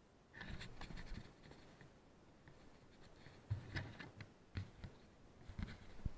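Faint handling noise picked up by the action camera on an Eachine Wizard X220 quadcopter with its motors off: irregular scraping and rustling with several soft knocks, as the quad is picked up and moved.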